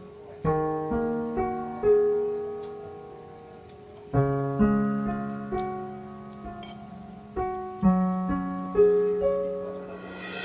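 Background piano music: slow chords and single notes, each struck and left to ring and fade.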